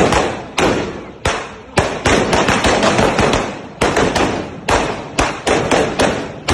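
A Phoenix Thunder 3000-round firecracker string (sawa) on a slow fuse going off: loud sharp bangs at an uneven pace of about two to four a second, each trailing off briefly before the next.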